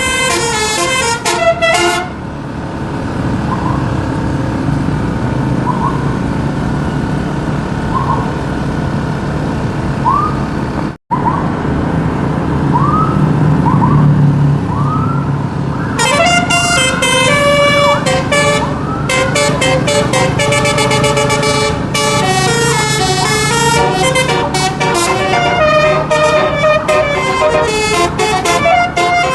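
Bus telolet horn from a Basuri horn module playing a multi-note tune at the start. A stretch of engine running follows, with faint short rising chirps and a brief dropout. From about halfway through, the horn plays quick changing melodies again to the end.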